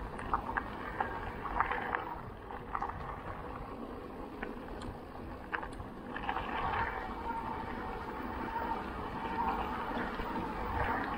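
Riding noise from an e-mountain bike on a trail: a steady rumble of wind and tyres with scattered small rattles and clicks, and a faint hum setting in about halfway through.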